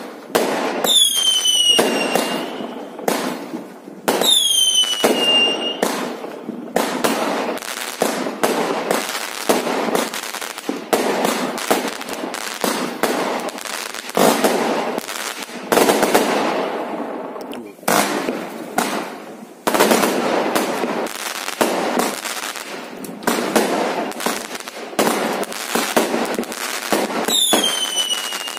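Aerial fireworks going off in quick succession: a steady run of bangs and crackling bursts, with whistling fireworks falling in pitch about a second in, around four seconds in and again near the end.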